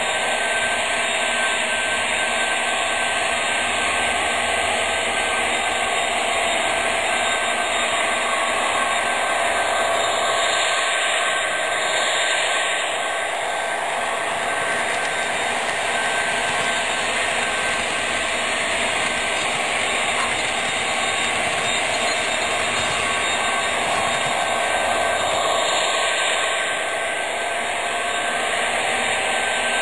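Sound-equipped HO scale model diesel locomotives (MTH SD70M-2s with Proto-Sound 3.0) running under DCC control, giving a steady, loud drone of diesel engine sound from their onboard speakers together with the running noise of the train on the track. The sound changes a little twice, about 11 and 25 seconds in, as the train passes close by.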